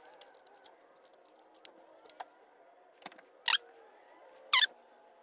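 Small plastic clicks and light rattling as AA batteries are pressed into a Lego Technic battery box, then a few sharper, louder clicks in the second half.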